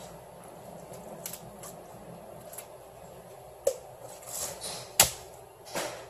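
Kitchen work at a cutting board: a few irregular sharp knocks and clicks of a knife and utensils, with a short scrape, the loudest knock about five seconds in, over a steady background hum.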